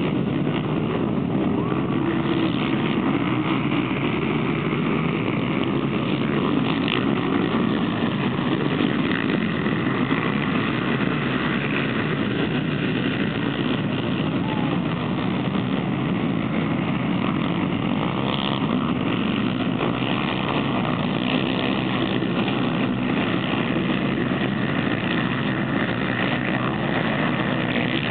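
The engines of a pack of racing ATVs (quads) revving hard together, a continuous din whose pitch keeps rising and falling as the riders accelerate.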